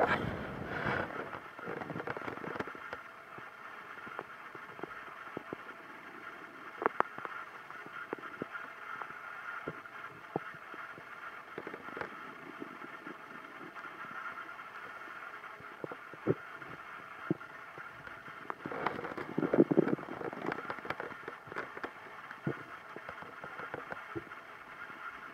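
Stomach rumbling: scattered short gurgles and pops, with a louder, longer gurgle about two-thirds of the way through, over a steady hiss.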